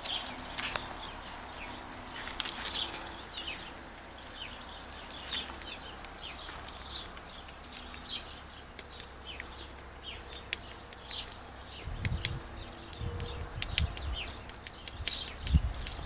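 Small birds chirping repeatedly in short high notes, with scattered light clicks and taps. From about three-quarters in, low rumbling thumps join them.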